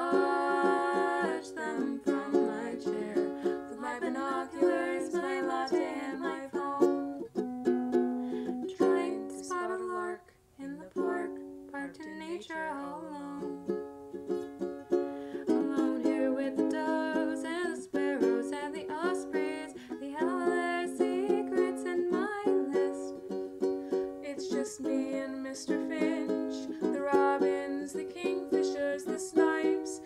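Instrumental music on a plucked string instrument, a quick run of short notes with a brief break about ten seconds in.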